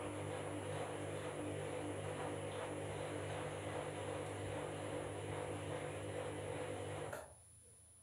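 Candy Grand'O front-loading washing machine turning its drum in the wash phase of a Duvet and Quilts cycle, a steady motor hum with the wet load sloshing, which stops suddenly about seven seconds in as the drum pauses between turns.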